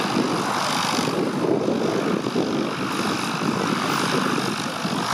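Piston engine and propeller of a small light aircraft running steadily on the ground.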